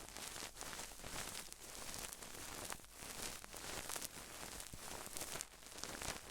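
Close-miked ASMR rustling and crackling: a steady run of small clicks and scratches without any clear rhythm.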